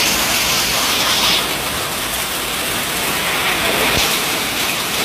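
Heavy rain pouring down steadily in a storm, with a single knock about four seconds in.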